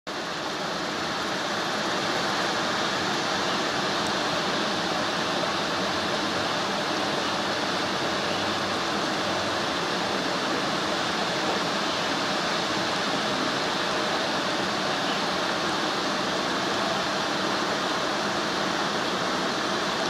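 Waterfall rushing: a steady, even rush of falling water that fades in over the first two seconds.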